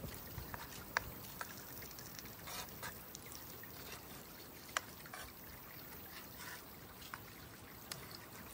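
A small creek trickling steadily, with a few sharp clicks of a cooking utensil against a frying pan, the loudest about a second in and again near five seconds in.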